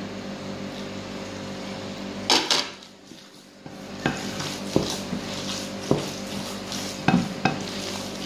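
Hands squishing and mixing a wet tuna fish-ball mixture in a glass bowl, with several sharp clinks against the glass, over a steady low hum.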